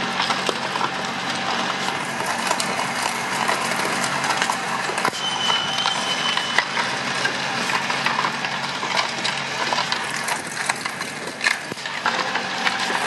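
A vehicle engine idling steadily, under constant light metallic clicking and clinking.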